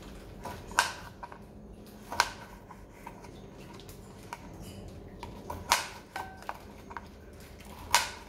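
A kitchen knife slicing through a raw sweet potato and knocking on the cutting board as each round slice comes off: four loud chops a few seconds apart, with smaller taps and scrapes between them.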